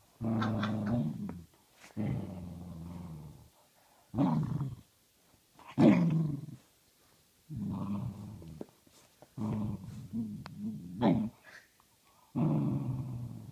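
Two dogs play-fighting, growling in about seven bursts of a second or so each, a few sharper and louder than the rest.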